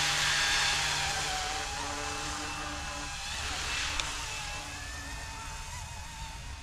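Goosky E2 electric RC scale helicopter flying low and away: the whine of its motors and rotors, wavering slightly in pitch, fading steadily as it moves off. A brief click about four seconds in.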